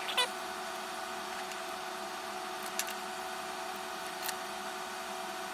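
Steady electrical hum and hiss with a few faint, light clicks scattered through it.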